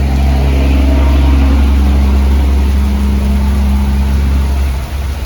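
Strong storm wind gust buffeting the microphone: a loud, deep rumble that holds for about five seconds and then drops off suddenly.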